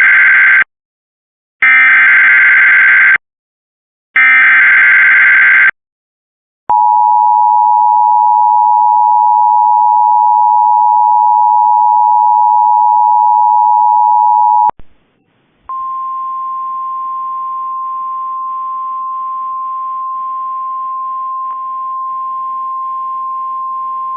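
Emergency Alert System opening tones: the last two of three short, screechy digital SAME header bursts, then the steady two-tone attention signal for about eight seconds. After a brief pause comes a single steady, quieter tone with faint hiss, the NOAA Weather Radio alert tone relayed ahead of the voice message.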